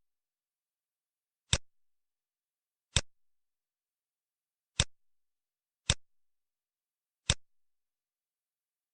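Five sharp, single clicks at uneven intervals, each cut short, with dead silence between them.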